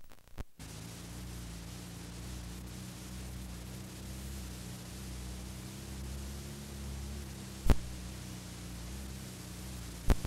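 Steady hiss and low electrical hum of a recording's background noise, with a few sharp clicks as it begins, one loud click about three-quarters of the way through and two more near the end.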